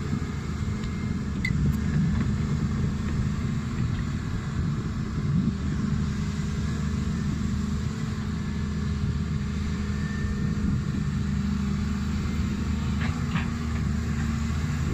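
Volvo EC210B tracked excavator's diesel engine running steadily under working load as the boom and bucket dig, with a couple of faint clicks near the end.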